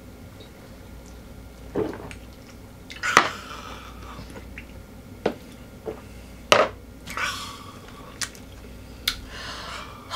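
Drinking and eating at the table after a toast: scattered sharp clicks and knocks of glasses and utensils, the loudest about three seconds in and again after six, with chewing and a couple of short breathy rushes.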